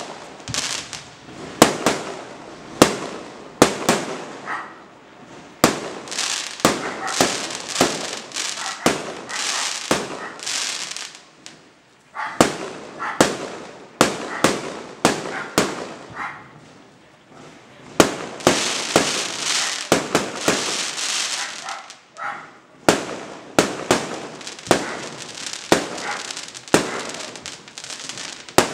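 Aerial fireworks going off one after another: sharp bangs of shells bursting, with stretches of dense crackling between them. The loudest bangs come in the first few seconds and again about eighteen seconds in.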